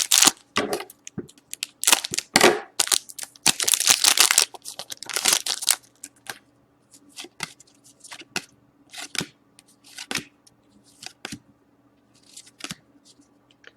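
A hockey trading-card pack's wrapper being torn open and crinkled, in several loud ripping strokes over the first six seconds. Then the cards are handled one by one with short, soft clicks and slides.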